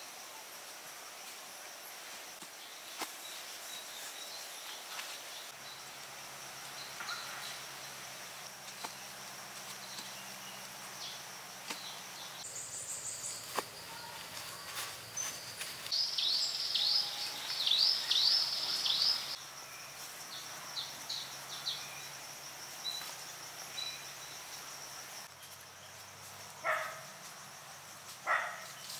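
Forest ambience: a steady high insect drone, with a bird giving a quick run of sharp descending chirps about halfway through, and a few softer calls elsewhere.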